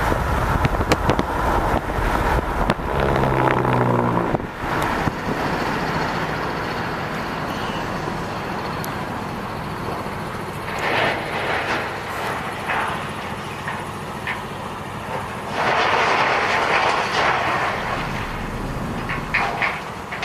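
Pile-driving machinery working at a railroad bridge: a steady heavy-machinery din, with several sharp knocks in the first four seconds and louder swells later on.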